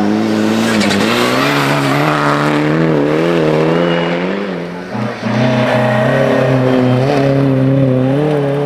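Two rally cars sliding past one after the other on a snow stage, engines at high revs. First a Mitsubishi Lancer Evolution, its engine note rising and falling as the throttle is worked through the slide; then, after a break about five seconds in, an old two-door Volvo saloon at steadier high revs.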